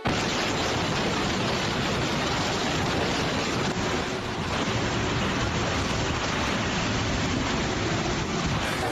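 Typhoon wind with heavy rain: a loud, steady rush of noise.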